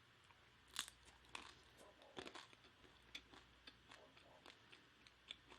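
A person chewing food close to the microphone: faint, irregular mouth clicks and small crunches, a few each second, the loudest about a second in.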